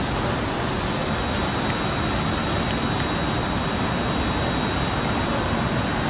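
Steady, even roar of road traffic with no single vehicle standing out.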